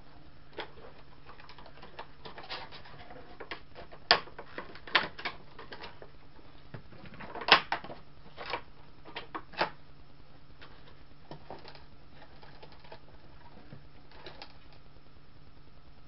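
Irregular clicks and taps of a collectible model ship and its display stand being handled and fitted together, with a few sharper knocks in the middle and fainter handling near the end.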